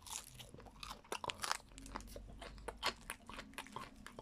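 A person chewing a mouthful of breaded, cheese-filled crispy pancake: a steady run of irregular crunches as the crumb coating breaks.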